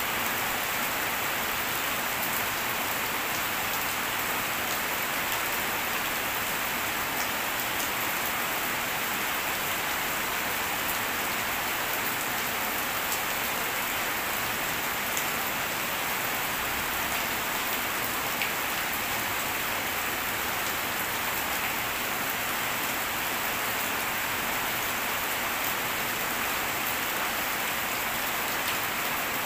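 Steady rainfall pattering on surfaces, an even hiss with scattered sharper drop ticks.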